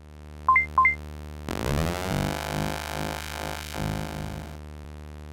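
Electronic synthesizer sounds: two quick beeps about half a second in, each a low note jumping to a higher one, over a steady low synth drone. From about a second and a half a louder, fuller synth tone swells in and lasts about three seconds, then the drone carries on alone.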